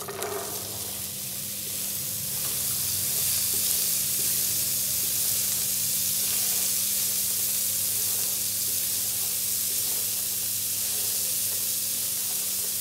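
Boiled black chickpeas (kala chana) sizzling as they fry in hot ghee with cumin and crushed red chilli in a non-stick pan, stirred with a silicone spatula. The sizzle starts as they go in, builds over the first few seconds, then stays steady.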